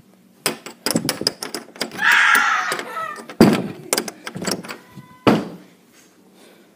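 A quick run of irregular knocks and thumps, like banging on a door or wood, with a short harsh noise around two seconds in. It all stops about five and a half seconds in.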